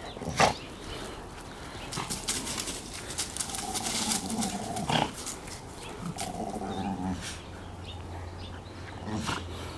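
Two dogs play-growling while tugging a rope toy between them, with two drawn-out growls of about a second each, near four and seven seconds in. Paws scuffle on dry leaves, and there is a sharp click about half a second in.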